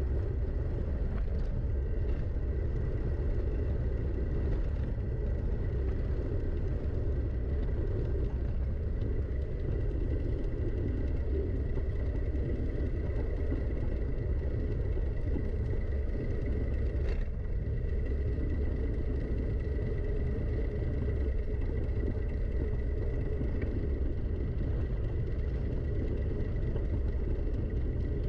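Steady wind rush and rolling rumble on the microphone during a downhill trail ride, with a faint steady high tone and one sharp click about two-thirds of the way through.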